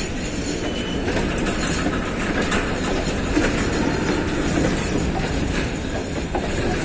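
Train running on the track, a steady rumble with the wheels clicking over rail joints.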